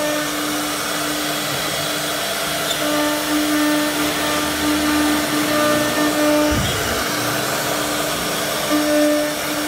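Woodworking CNC router with its dust extraction running: a steady mechanical whine over a constant rushing of air. The whine drops out with a low thump about two-thirds of the way through and comes back near the end.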